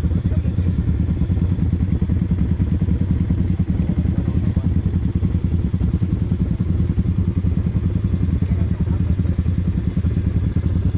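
ATV engine running at a steady speed, a fast low pulsing throb.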